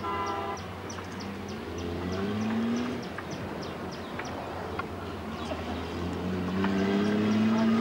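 A motor vehicle's engine running steadily. A short pitched blast sounds at the start, a longer rising pitched sound comes near the end, and faint quick ticking runs through the first half.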